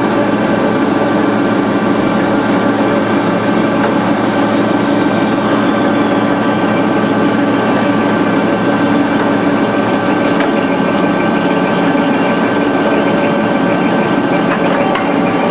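DoAll C5A automatic horizontal band saw running steadily: a 2-HP motor drive and blade making a continuous machine noise. A faint high tone drifts lower over the first several seconds, and about ten seconds in the high-pitched hiss drops away.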